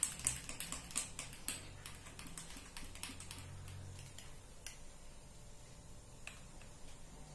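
Spoon stirring a thick spirulina powder drink in a glass, clicking against the sides: faint quick clicks about four a second at first, then only a few scattered ticks.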